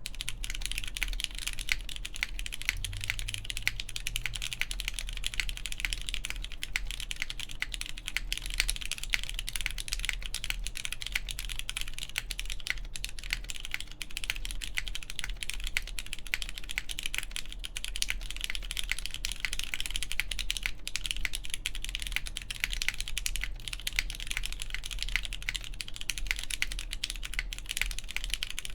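Continuous fast typing on a plateless mechanical keyboard with lubed Cherry MX Brown switches and GMK keycaps: a dense, steady stream of key clicks and bottom-outs.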